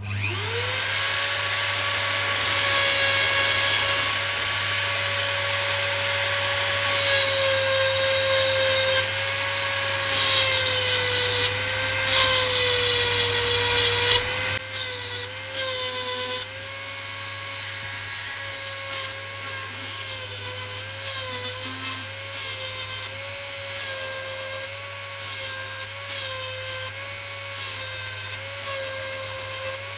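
A Dremel rotary tool sharpening a chainsaw chain. It spins up to a steady high whine, and about halfway through it turns quieter, its pitch wavering slightly now and then.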